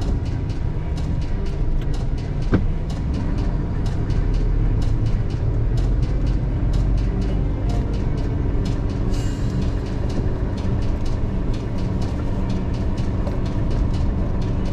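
A large truck's diesel engine running steadily at low speed, heard from inside the cab as a low drone, with many light clicks and rattles over it.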